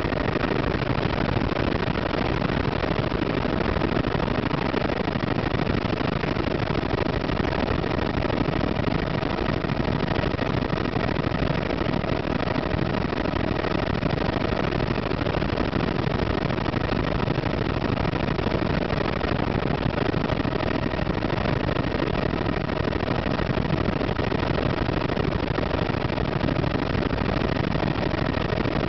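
Helicopter in flight heard from inside the cabin: engine and rotor running steadily, a dense rumble with a few faint steady tones above it.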